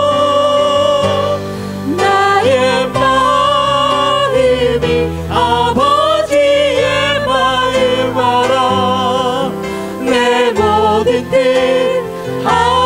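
A small vocal ensemble singing a Korean worship song, holding long wavering notes over instrumental accompaniment.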